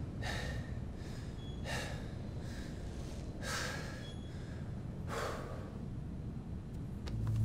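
A man breathing heavily, out of breath after exertion: four long breaths, one about every one and a half to two seconds.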